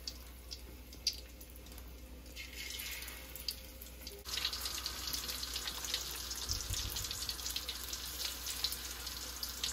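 Hot oil sizzling and crackling around coated chicken pieces in a steel karahi. About four seconds in it turns suddenly louder and busier, with dense spitting, as more chicken pieces go into the oil.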